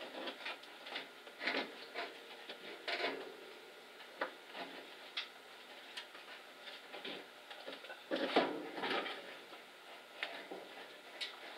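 Irregular clicks, taps and scrapes of a heater core housing being worked loose by hand from the firewall of a 1970 Chevrolet C10 pickup, its mounting nut taken off and the box rubbing against the firewall. The loudest stretch of scraping comes about eight seconds in.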